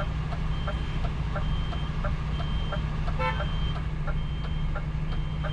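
A truck's diesel engine running steadily while the truck reverses, with its reversing alarm giving a high beep about once a second. A faint regular ticking runs underneath, and one short chirp comes a little past the middle.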